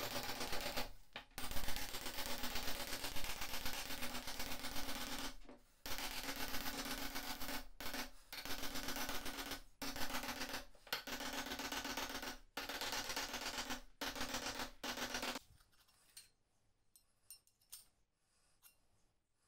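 Hammer blows on a torch-heated steel part clamped in a bench vise: a fast, rattling run of taps in several bursts with short breaks, over the steady rush of a gas torch. About three-quarters of the way through it stops, leaving a few faint clicks of handling.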